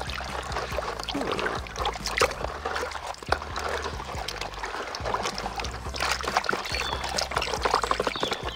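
Water sloshing and splashing in a plastic tub as a hand swishes and scrubs a toy with a cloth in muddy water, in irregular strokes.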